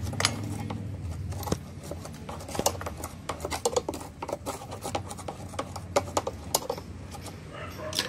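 Irregular clicks and scrapes of a screwdriver tip picking grime out of the plastic outlet of a washing machine drain valve. A low hum stops about a second and a half in.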